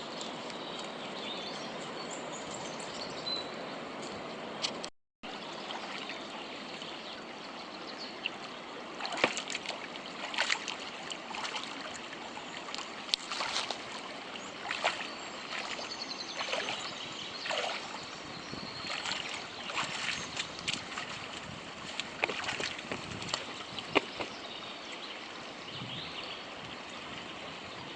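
Creek water running steadily, with a brief break about five seconds in. From about nine seconds on, short, irregular splashes of someone moving in the water sound over it.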